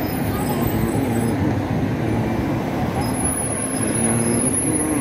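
Large city bus running close by amid street traffic, a steady heavy rumble.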